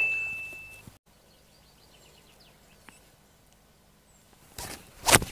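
A bright chime rings and dies away in the first second. Then, over faint birdsong, a golf iron strikes the ball off the tee near the end, a sharp crack.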